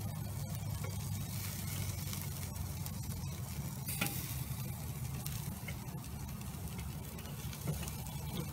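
Sauce-basted pork chops sizzling and crackling on a charcoal grill grate, over a steady low hum, with one sharp click about four seconds in.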